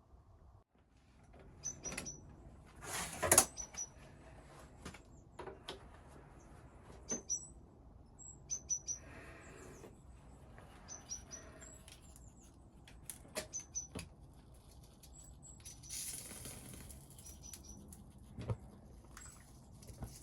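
Small birds chirping, in short high calls scattered throughout, over sharp clicks and knocks and two brief hissing scrapes, the louder one about three seconds in.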